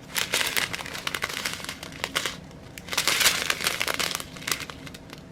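Small plastic bags of diamond painting drills crinkling as they are handled. The crinkling comes in two busy spells with a short lull about two seconds in, then thins out near the end.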